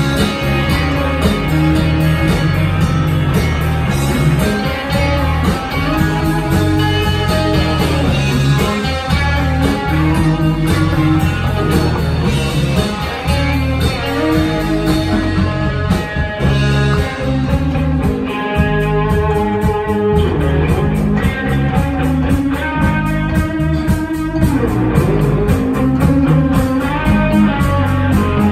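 Live rock band playing an instrumental break: electric guitar playing a melodic lead over bass and a steady drum beat.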